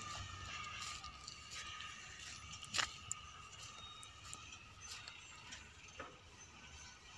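Faint, steady hum of distant heavy machinery, an excavator loading a dump truck, with scattered light clicks and taps, the sharpest about three seconds in.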